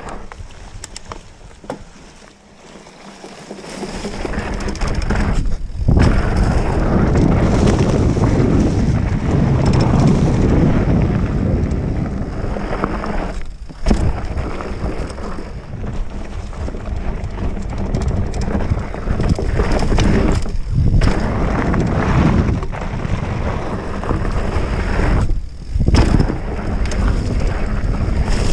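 Wind buffeting the action camera's microphone while a mountain bike is ridden along a dirt trail. It is quieter for the first few seconds, then becomes a steady loud rush with a few brief dips.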